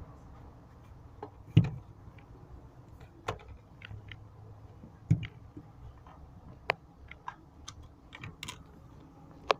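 Irregular clicks and taps, with two louder knocks about one and a half and five seconds in: hands handling a small portable fan and its packaging.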